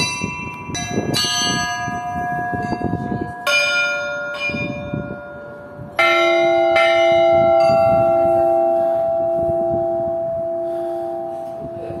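Small bells of a Russian Orthodox belfry rung by pulling their clapper ropes, as a layperson tries them: a handful of uneven single strikes, each ringing on for seconds. The loudest comes about halfway through and leaves a lower, wavering hum that slowly fades.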